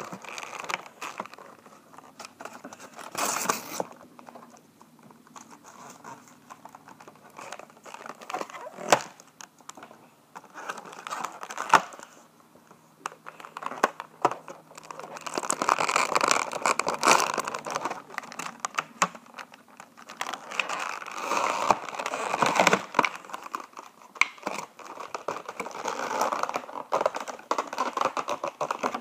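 A toy figure's box and plastic packaging being opened by hand: irregular crinkling and tearing with a few sharp clicks, loudest in two stretches after the middle.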